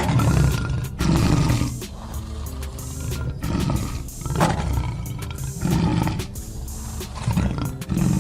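Lion roaring: a series of deep roars repeating every second or so, over background music.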